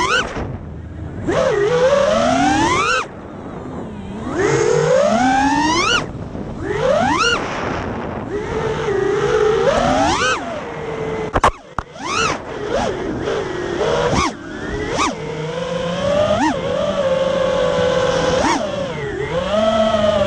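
Brushless motors and props of a 5-inch FPV quadcopter (XING X2207 motors on a 5S battery) whining, the pitch rising and falling sharply again and again with throttle punches and dives. A sharp crack with a brief dip comes about halfway through, and the whine settles into a steadier tone near the end.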